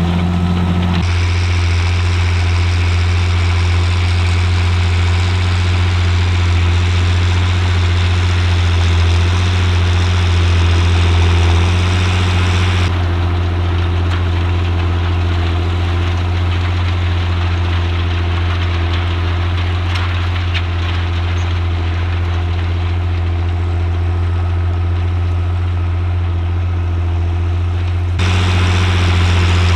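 John Deere 8300 tractor's six-cylinder diesel engine running steadily while pulling a seven-furrow plough, a deep drone with mechanical noise over it. Its tone changes abruptly three times.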